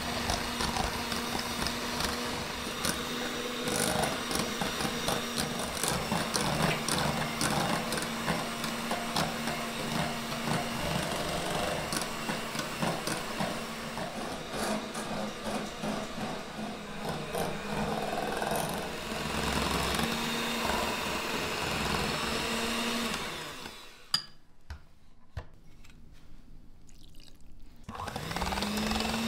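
Katomo electric hand mixer running steadily with a motor hum, its beaters whisking mayonnaise and clattering against the glass bowl. The mixer stops about four-fifths of the way through with a click. It starts again near the end, its whine rising as the motor spins up.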